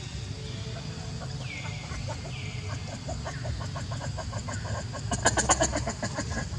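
Animal calls: a few short falling chirps, then a rapid run of short, sharp calls from about three seconds in that grows loudest just after five seconds, over a steady low rumble.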